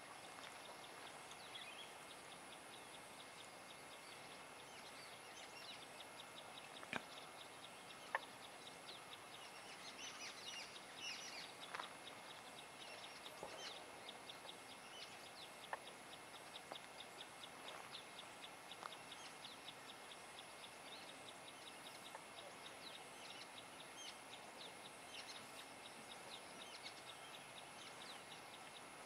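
Faint outdoor ambience: scattered bird calls and chirps over a steady high hiss, with two sharp snaps about seven and eight seconds in.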